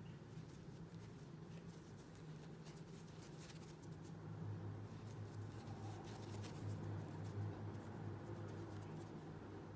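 Faint scratching and rustling of a crochet hook working cotton amigurumi yarn, many small rapid clicks, over a steady low hum.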